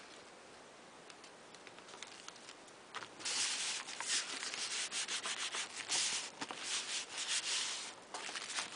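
Hands rubbing and smoothing a sheet of painted paper flat onto a glued book cover: a dry, papery swishing in many quick strokes that starts about three seconds in.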